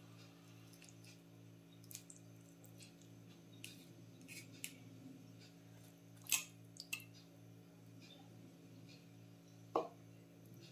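Wooden spoon and fork tapping and scraping against a clay pot and a ceramic plate while wet stewed meat and chickpeas are served, a few scattered sharp clicks, the loudest about six seconds in and a duller knock near the end, over a faint steady low hum.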